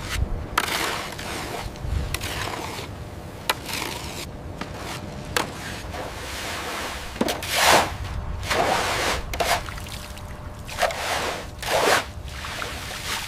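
Liquid poured from buckets and splashing across a wet floor, with brooms scraping through it and scattered small knocks. There are two louder splashing surges, one near the middle and one near the end.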